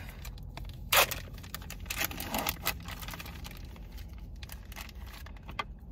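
Plastic turkey-sausage packaging crinkling and tearing as the freshly opened package is handled and the sausages are pulled out. It comes as irregular sharp crackles, the loudest about a second in.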